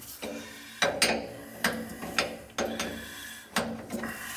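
Wrench working on an old metal fitting of a heating-oil tank line: a series of sharp metallic clicks and clanks at irregular intervals, several followed by a short ringing tone.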